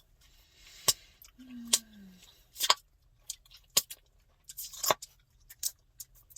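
Bubble gum being cracked and popped in the mouth: a string of sharp snapping pops, about six loud ones roughly a second apart with smaller smacking clicks between them. A short low hum from a voice, falling in pitch, comes about a second and a half in.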